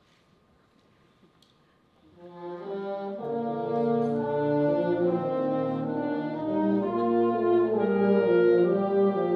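Wind band music: after a near-silent moment, the band comes in about two seconds in and swells into held chords, the notes changing about once a second.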